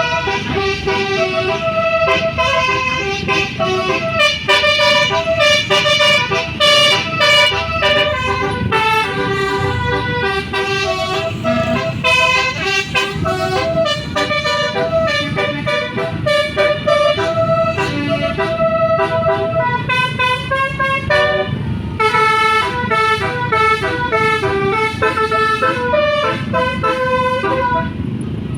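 Tour bus telolet horn, a set of multi-tone air horns, playing a melody of quickly changing notes over a low rumble, with a short break about three-quarters of the way through.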